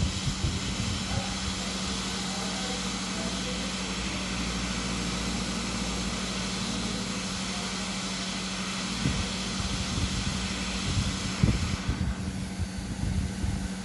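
Hot-air SMD rework station blowing a steady hiss over a low hum as a BIOS chip is set onto the motherboard's pads. The hiss falls away about twelve seconds in, after a few soft knocks.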